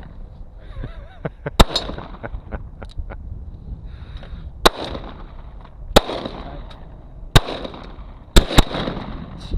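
Smith & Wesson Model 29 .44 Magnum revolver fired single-action, the hammer cocked for each shot: about six sharp gunshots a second or more apart, the last two close together near the end.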